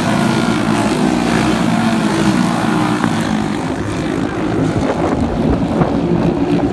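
Several racing karts with Briggs & Stratton Animal single-cylinder four-stroke engines running at high revs on track, their overlapping engine notes wavering up and down as they pass and circle the oval.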